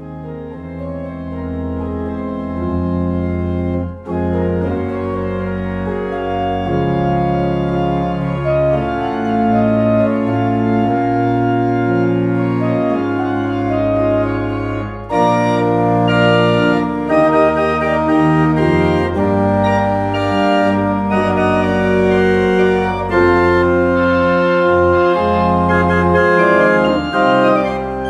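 Cathedral pipe organ playing slow sustained chords over a deep pedal bass. The sound grows fuller, brighter and louder about halfway through.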